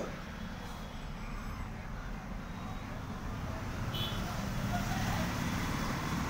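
A car engine idling: a steady low rumble.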